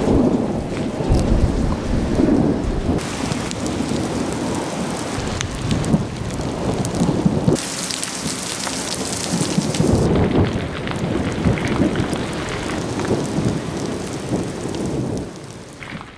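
Heavy rain hissing with repeated low rumbles like thunder. The hiss changes character abruptly several times.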